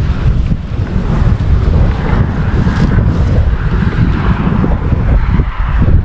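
Wind buffeting the microphone: a loud, unsteady low rumble.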